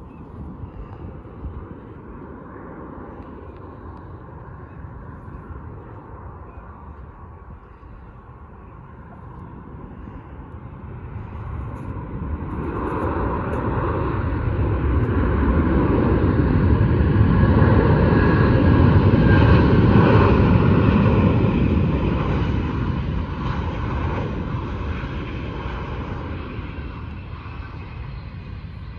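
Jet airliner landing: faint engine rumble at first, then the jet noise swells to a loud peak about two-thirds of the way in as the aircraft rolls along the runway, and fades again near the end.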